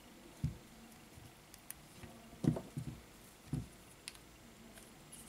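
Quiet handling noise: a few dull knocks and small clicks as a smartphone with a freshly glued back cover is turned in the hands and a plastic spring clamp is brought up to it, one knock about half a second in and a cluster of three or four later.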